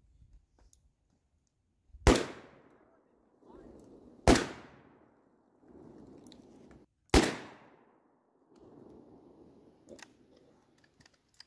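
Three gunshots, about two to three seconds apart, each followed by a short echo tail. A few faint clicks near the end.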